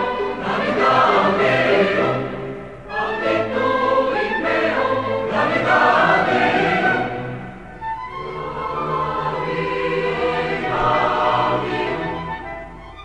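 Background choral music: a choir singing long, held phrases that ease off briefly between phrases twice before the music swells again.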